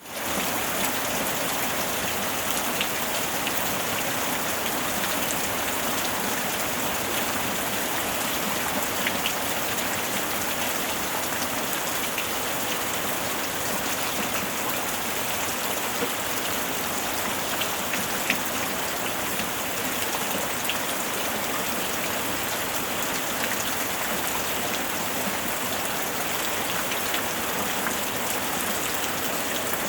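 Steady rain falling on a surface, a dense even hiss with scattered small drop ticks, fading in at the very start.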